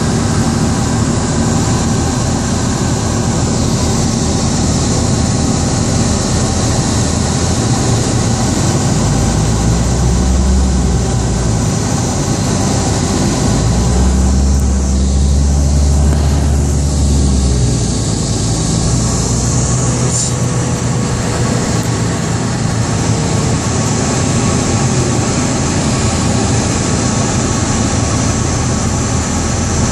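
Train passing close by: a steady rolling rumble and rattle, with two heavier low rumbles near the middle.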